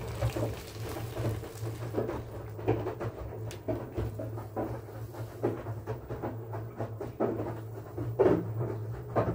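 Water poured from a kettle into a plastic basin of towels soaking in oxygen stain remover, followed by irregular clunks and knocks as the basin and kettle are handled, over a steady low hum.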